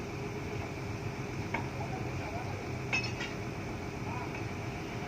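Two light metal clinks, about one and a half and three seconds in, the second the louder, over a steady low engine hum.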